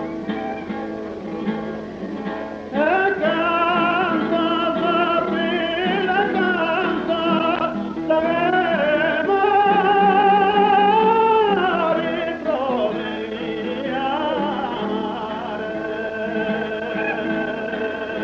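Sardinian canto a chitarra: acoustic guitar playing alone, then about three seconds in a singer comes in with a long, high, ornamented phrase, its held notes wavering, over the guitar accompaniment.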